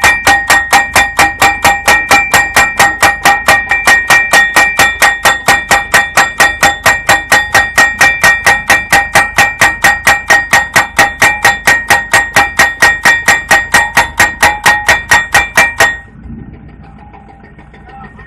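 Hydraulic pile driver hammering a steel pile: rapid, even blows at about five a second, each with a metallic ring. The hammering stops suddenly about sixteen seconds in, leaving the rig's engine running quietly.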